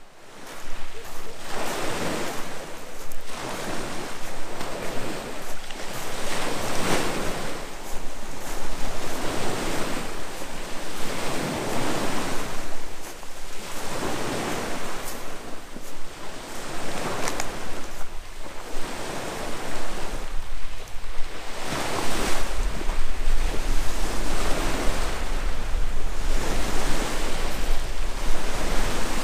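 Sea waves washing onto the shore, the surf swelling and fading about every two seconds, with wind blowing over the microphone. The wind rumble grows much stronger about three-quarters of the way through.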